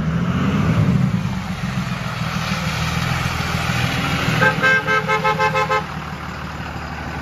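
Dodge Ram 2500 pickup's engine rumbling as the truck pulls up, swelling about a second in. About four and a half seconds in, its horn sounds a rapid string of short toots lasting about a second and a half.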